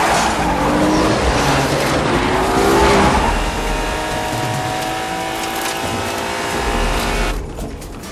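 Car engines revving hard at speed, their pitch climbing and falling, with a loud rush of tyre noise over the first few seconds. Near the end the high part of the sound cuts off suddenly and it turns dull.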